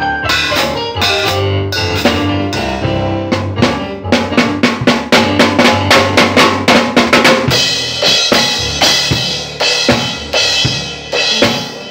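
A boy playing a drum kit: snare, bass drum and tom hits with rimshots, getting quicker and more regular about four seconds in, with cymbals ringing over the hits later on.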